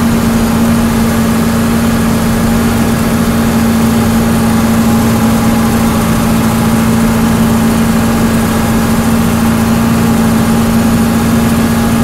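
John Deere 4430 tractor's six-cylinder turbo-diesel engine running at a steady working speed while pulling a sprayer at about 5 mph, heard from inside the cab as an even, unchanging drone.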